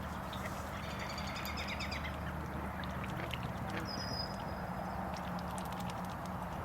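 Steady low background noise with faint, short animal calls, duck-like quacks among them, and a brief high whistle-like note partway through.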